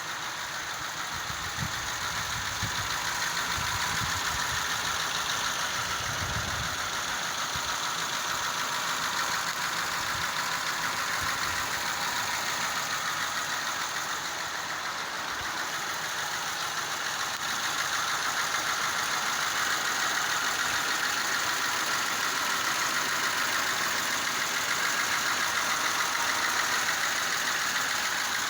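Car engine idling steadily, its exhaust manifold leak freshly repaired so that no leak noise is heard. A few low thumps come between about two and seven seconds in.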